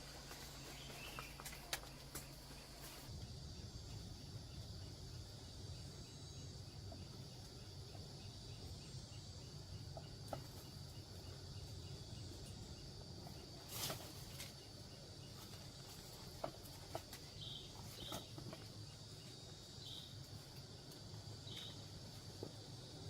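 Insects droning steadily at a high pitch, with a few short sharp clicks and rustles scattered through it.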